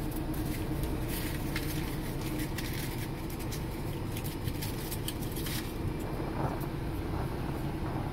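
Steady low hum of an idling car heard from inside the cabin, with scattered light rustles and clicks as a plastic bag and a plastic spoon are handled.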